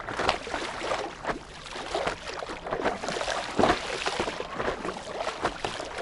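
Water splashing and slapping against the nose of a paddle board as it is paddled over calm sea, with irregular splashes from the paddle strokes.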